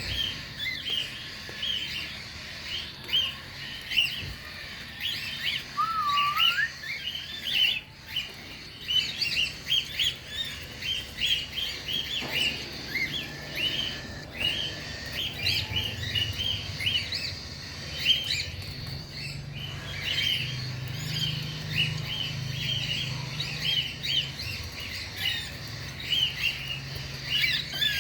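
A flock of cockatiels chirping and chattering, many short calls overlapping without pause, with one rising whistle about six seconds in.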